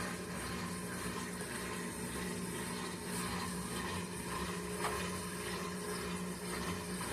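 Electrolux Turbo Economia 9 kg (LTE09) top-loading washing machine in its spin cycle, running with a steady hum while water drains through its pump.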